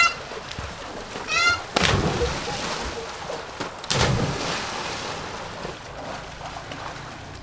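Two big splashes about two seconds apart as children jump into a swimming pool, each followed by water churning and slapping. A child gives a short high shout just before the first one. Softer steady splashing and running water near the end.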